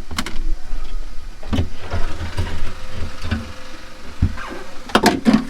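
Putty knife scraping and prying tar sound-deadening mat off a car's sheet-metal floor, with irregular knocks and scrapes, a cluster of sharper ones near the end.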